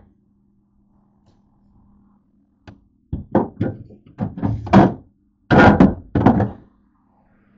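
Knocks and thuds of bottles and groceries being set down and moved about on refrigerator shelves, starting about three seconds in, with two longer clattering sounds a little later. A faint steady hum lies underneath.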